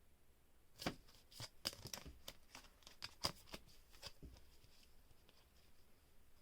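Trading cards being handled: a quick run of faint sharp clicks and rustles from about a second in to about four seconds in, then quiet handling.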